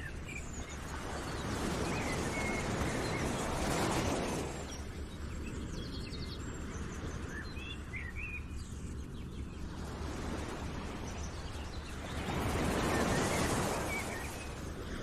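Outdoor nature ambience: birds chirping here and there over a steady rushing noise that swells louder twice, a couple of seconds in and again near the end.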